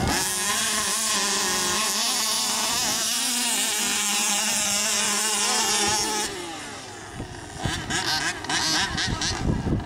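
Small 29–30cc two-stroke petrol engines of HPI Baja RC buggies buzzing at high revs, their pitch wavering. About six seconds in the buzz falls away and the sound turns uneven and choppy.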